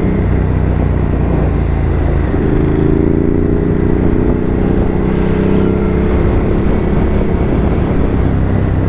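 Ducati Hypermotard 950's L-twin engine running as the motorcycle is ridden along the road. Its note fades about a second in, then returns around two seconds in and climbs gently as it accelerates before holding steady.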